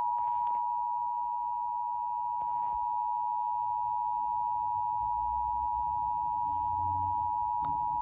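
Emergency Alert System attention tone from an Eton radio's speaker: one steady, unbroken tone just under 1 kHz that opens a Required Monthly Test broadcast.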